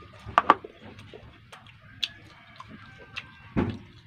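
Plastic food containers and chopsticks handled on a table: two sharp clicks about half a second in, a few lighter taps, and a dull thump near the end as one tub is set down and another picked up.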